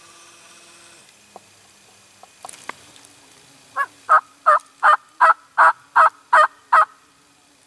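Turkey call imitating a hen, giving a run of nine evenly spaced yelps at about three a second, after a few faint clicks.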